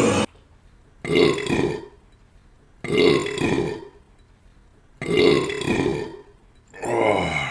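A person belching loudly four times in a row, each burp about a second long, with short quiet pauses between them.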